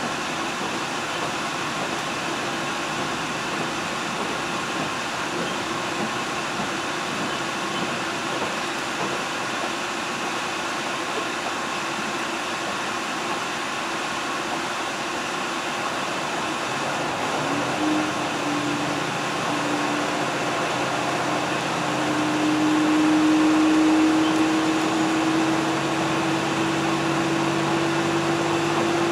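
Steady running noise of a diesel train, wheels on rail, heard from inside the carriage. About two-thirds of the way through, an engine and transmission tone comes in and slowly rises in pitch as it grows louder: the train is pulling harder and gathering speed.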